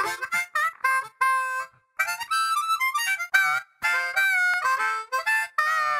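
Solo harmonica playing a lively tune in short phrases, with bent notes.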